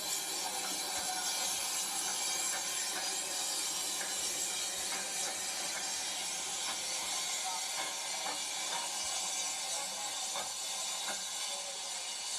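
Steam-locomotive sound effects for a Hornby W4 Peckett model: a steady hiss of steam with faint, irregular clicks about once a second.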